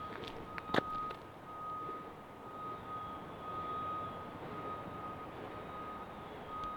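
Faint, evenly repeated electronic beeping at one steady pitch, with a single sharp click about a second in.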